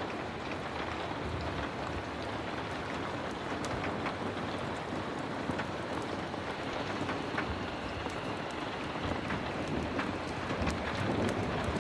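Heavy rain falling steadily, with scattered sharp crackles and ticks through it.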